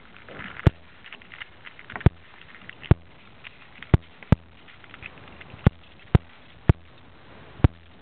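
Plastic pieces of a Rubik's cube clicking and knocking as the cube is taken apart piece by piece, about nine sharp, irregularly spaced clicks with light rattling in between.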